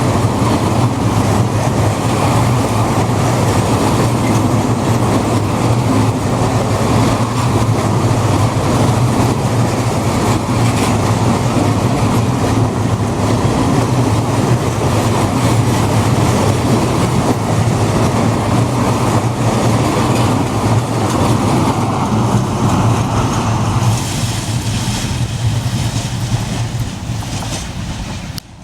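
Slow freight train of Eas open wagons rolling past, a steady loud rumble of wheels on rail. It thins out a few seconds before the end, then breaks off suddenly.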